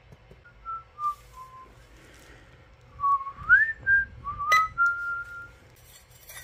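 A person whistling a tune in clear single notes: a short descending phrase, then after a pause a phrase with a quick upward slide and a long held note. A sharp click about four and a half seconds in.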